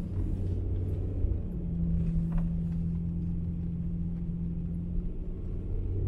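Toyota Tacoma pickup driving on a snow-covered road, heard from inside the cab: a steady low engine and tyre drone. Its pitch steps up about a second and a half in and drops back near the end.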